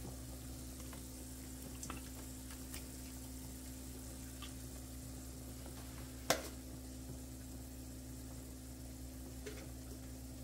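Broth boiling in a pot with a fish just put in: a steady bubbling hiss, with a few light ticks and one sharper knock about six seconds in.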